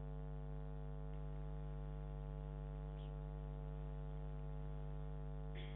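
Steady electrical mains hum, an even low buzz with a few faint small clicks over it.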